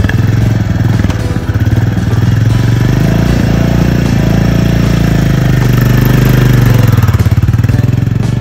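Royal Enfield 350 single-cylinder motorcycle engine running at idle with an even, rapid beat, then opened up and growing louder about two-thirds of the way through as the bike pulls away.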